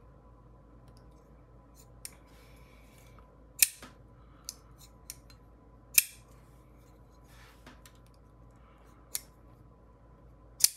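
A Pena Paramour folding knife, on freshly installed Skiff pivot bearings, flipped open and closed several times. The blade snaps sharply into place, with a few loud snaps a couple of seconds apart and lighter clicks between them.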